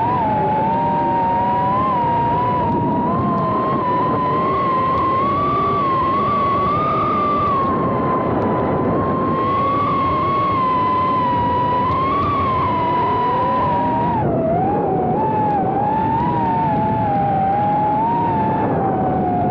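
Radio-controlled car's motor whining at high pitch, the pitch wavering up and down with throttle, with a second, lower whine alongside and a constant rough rumble underneath. About fourteen seconds in the whine dips and wobbles before settling slightly lower.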